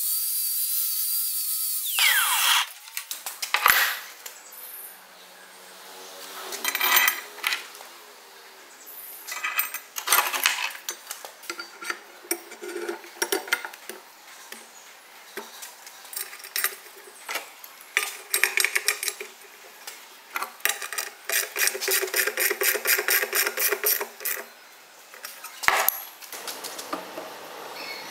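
An angle grinder with a flap disc running against a steel bolt head, spinning down about two seconds in. Then irregular clanks, knocks and scraping of heavy steel parts being handled and set down on a steel workbench.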